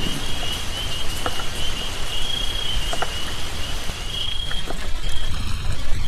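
Rain falling steadily, with scattered drops ticking and a high chirping that comes and goes in uneven pulses.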